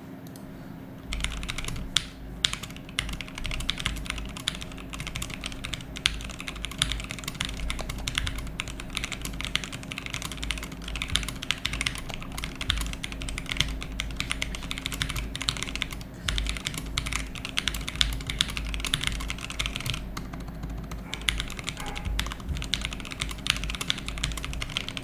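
Continuous fast typing on a Tofu 65 custom mechanical keyboard with C³ Tangerine linear switches, PBT keycaps and a polycarbonate plate, a quick run of keystrokes that eases off briefly about twenty seconds in.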